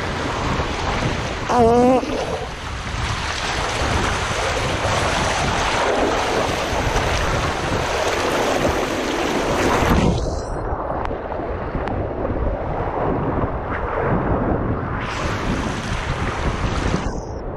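Rushing, splashing water with wind buffeting the microphone, with a brief wavering squeal about two seconds in.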